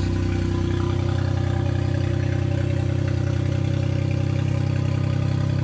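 Turbocharged Daihatsu Mira engine idling steadily and loud, running on just a newly made downpipe with no further exhaust.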